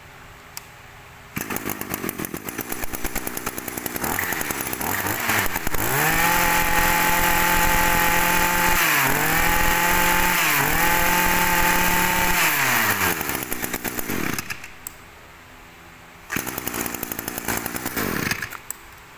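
Echo 24cc two-stroke brush cutter engine pull-started. It idles, is revved to a high steady pitch with the throttle eased off twice, drops back to idle and cuts out. It starts again and runs for about two seconds near the end.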